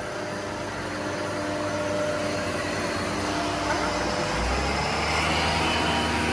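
Shark AZ950UK upright vacuum cleaner running steadily, with a motor whine whose pitch shifts slightly about four seconds in.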